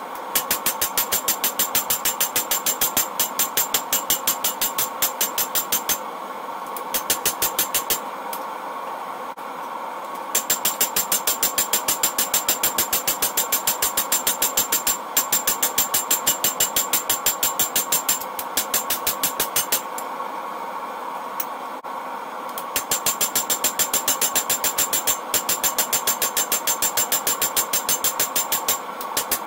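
Hand hammer striking red-hot leaf spring steel on an anvil, played back sped up four times, so the blows come as rapid, evenly spaced strikes with a high metallic ring. The blows come in runs broken by short pauses, over a steady rushing noise.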